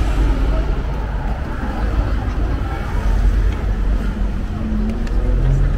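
Steady low rumble of road traffic on a busy city street, with faint voices in the background.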